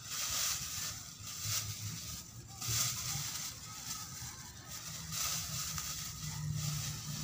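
Clear plastic bag crinkling and rustling as it is handled, in several irregular bursts.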